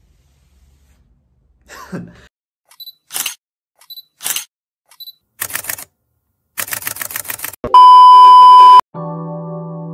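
Added camera sound effects: three times a short high beep followed by a shutter click, then a quick run of shutter clicks. Then a loud, steady, high beep about a second long, the loudest sound, with soft electric-piano music starting near the end.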